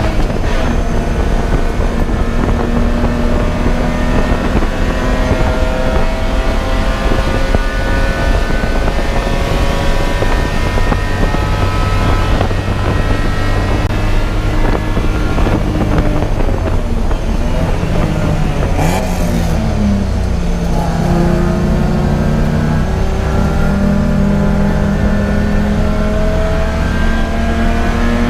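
Race car engine under hard acceleration, its pitch climbing slowly and steadily. About eighteen seconds in the engine note falls away with a brief sharp crackle, then starts lower and climbs again.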